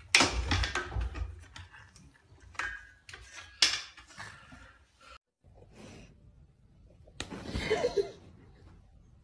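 A long stick carried crosswise in a French bulldog's mouth knocking against the sides of a doorway: several hard thunks, the sharpest about three and a half seconds in.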